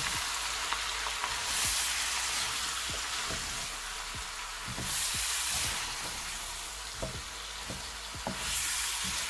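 Chicken pieces and vegetables sizzling in a nonstick pan while a wooden spatula stirs them, with light knocks and scrapes of the spatula against the pan. The sizzle swells three times as the food is turned.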